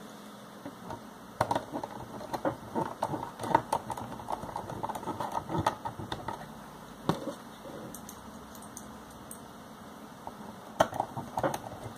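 Small screwdriver turning tiny screws into a floppy drive's circuit board: irregular clicks, taps and scraping of the tip in the screw heads, busy for several seconds in the first half, with a few more clicks near the end.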